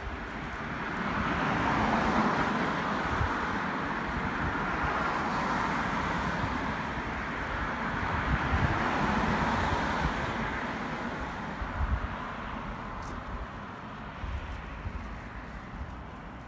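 Road traffic: cars going by on the street, a steady tyre-and-engine noise that swells about two seconds in and again around eight to nine seconds, then fades away.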